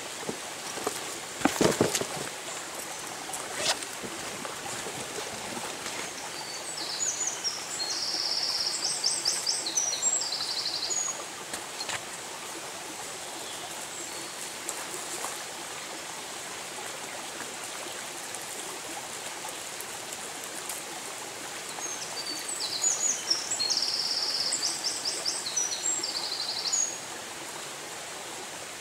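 Shallow forest stream running steadily over stones, with a songbird singing two long, varied phrases about fifteen seconds apart. A few sharp knocks come near the start.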